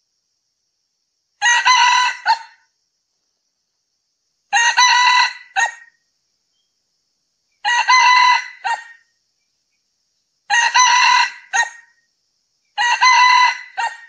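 Male red junglefowl crowing five times, about three seconds apart; each crow is short and clipped, ending in a brief separate final note.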